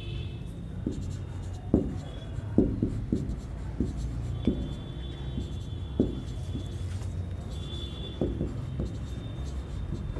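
Marker pen writing on a whiteboard: irregular taps and short strokes of the felt tip against the board, over a steady low hum.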